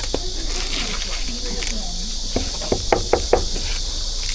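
A quick run of about five sharp knocks in the second half, over a steady high hiss.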